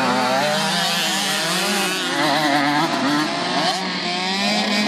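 Several motocross bikes revving at once, their overlapping engine notes rising and falling as the riders open and close the throttle.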